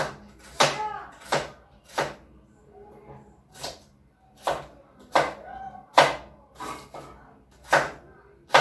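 Kitchen knife chopping raw meat on a cutting board: about a dozen sharp chops at an uneven pace, with a short pause about two and a half seconds in.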